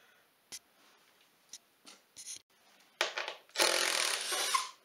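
Cordless power driver spinning out the clutch cover bolts, after a few faint clicks: a short whir about three seconds in, then a louder run of about a second.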